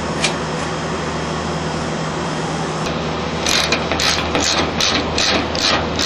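A screw being driven by hand with a nut driver into the sheet-metal top of an HVAC condensing unit to hold the fan guard grille down, giving a rhythmic scraping about three times a second from about halfway through. A steady low machinery hum runs underneath.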